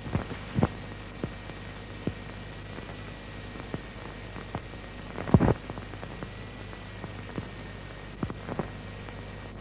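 Steady hiss and hum of an old film soundtrack transferred from VHS, with scattered sharp clicks and pops and a louder cluster of pops about five seconds in.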